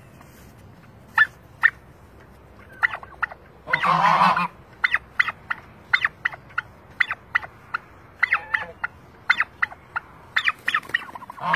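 Turkeys calling: a string of short, sharp clucking calls, with a tom turkey's rattling gobble about four seconds in and another starting right at the end.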